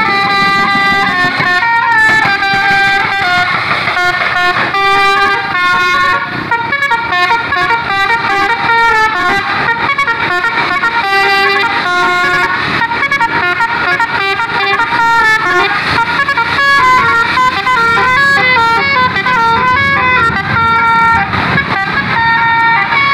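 Tour bus's Basuri-type telolet musical air horn playing a loud, continuous tune of stepped notes that change every fraction of a second to a second.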